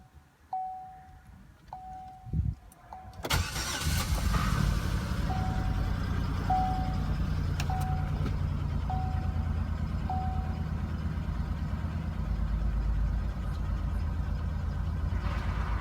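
A 2006 Chevrolet Impala's 3.9L V6 is cranked and catches about three seconds in, then idles steadily; the owner says this engine has a misfire (code P0306, cylinder 6) that clears up once throttle is given. The car's warning chime sounds at about one beep a second and stops about ten seconds in.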